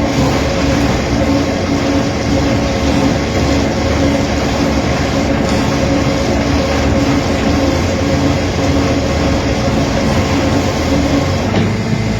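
Automatic woodworking machine running steadily, a loud continuous mechanical noise with a constant-pitch hum under it.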